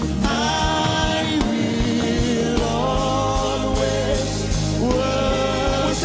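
Gospel worship music: sustained singing with a band underneath, over a steady beat.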